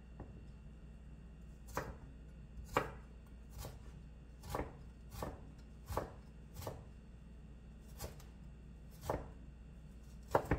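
Chef's knife chopping fresh ginger on a wooden cutting board: about ten separate, unhurried knocks of the blade on the board, starting about two seconds in.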